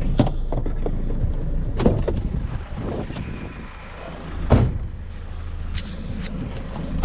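Scrap metal being handled and loaded into a van: scattered knocks and clunks, with one heavy thump about four and a half seconds in, over a steady low vehicle rumble.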